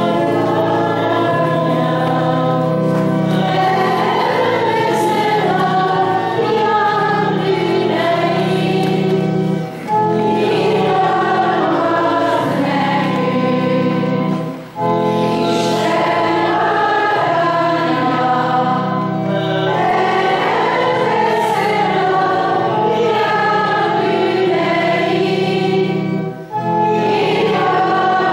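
A choir sings a church hymn to organ accompaniment, with the organ holding steady low notes under the voices. The singing goes phrase by phrase, with short breaks about 10, 15 and 26 seconds in.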